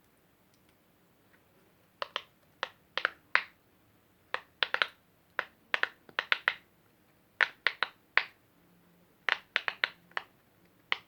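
Silicone pop-it fidget toy being pressed: quiet at first, then about two seconds in a string of sharp pops begins, coming in uneven clusters of two to four.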